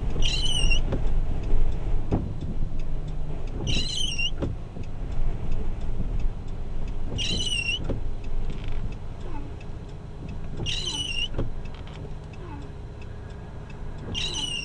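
Low rumble of a vehicle's engine and road noise heard from inside the cab, with a few knocks. Over it, a short, high, wavering beep repeats five times, about every three and a half seconds.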